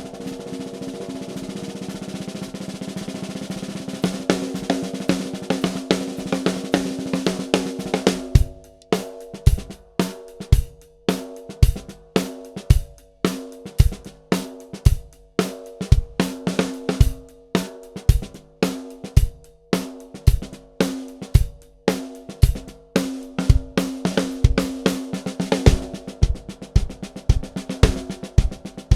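Ludwig Supralite 14"x6.5" beaded steel-shell snare drum played in a fast roll that swells louder with accents, the shell ringing throughout. About eight seconds in it breaks into a groove, snare hits over a bass drum.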